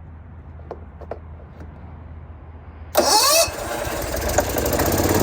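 Gasoline Generac portable generator being started. A few faint clicks come first, then a sudden loud burst with a falling whine about three seconds in as it cranks. The engine catches at once and runs steadily, growing a little louder.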